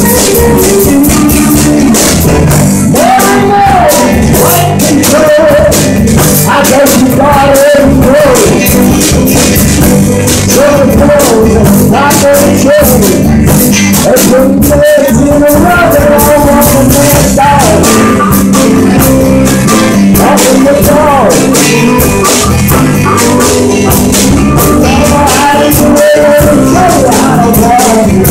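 Live blues band playing loudly: electric guitars, bass and drums, with a harmonica played into a microphone carrying a bending lead line over them.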